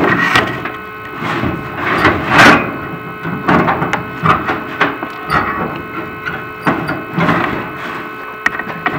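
Inspection camera and its cable scraping and knocking against the metal flue of a prefab fireplace as it is moved through the pipe. The scrapes and knocks come at irregular intervals over a steady electrical whine.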